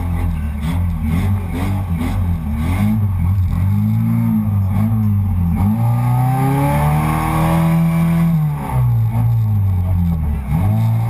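Off-road 4x4's engine revving in short bursts as it works through deep mud, with one longer climb in revs past the middle that drops off suddenly, followed by more short blips.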